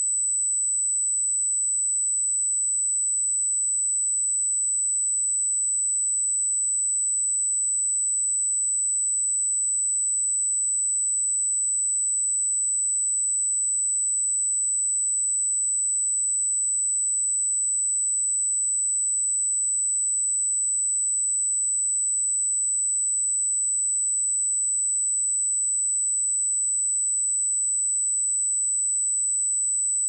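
A pure 7991 Hz sine-wave test tone, one steady high-pitched whistle held at constant level, used for checking speakers and headphones.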